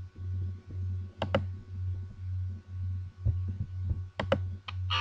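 A few sharp clicks in close pairs, about a second in and again about four seconds in, over a low hum that swells and fades in a slow, regular pulse.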